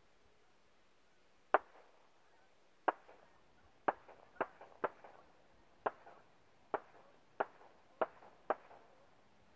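Ten .22 rifle shots heard from about a mile downrange of the shooter: sharp cracks at uneven intervals, each with a short echoing tail.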